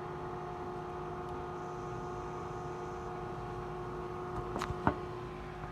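Microwave oven running with a steady hum, the popcorn just started heating and not yet popping. About four and a half seconds in come a few short knocks, the phone being handled.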